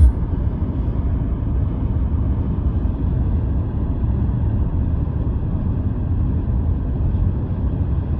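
Steady low rumble of a moving vehicle, with no pitch changes.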